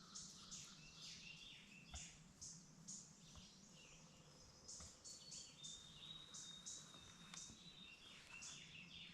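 Faint songbirds chirping: many short, high calls over a low steady hum. A thin, steady high note holds for about two seconds past the middle.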